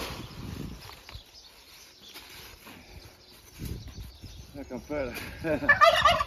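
A pitchfork drops cabbage and broccoli greens onto the ground with rustles and soft thuds. Near the end, chickens and turkeys call with a quick run of short, warbling notes that rise and fall.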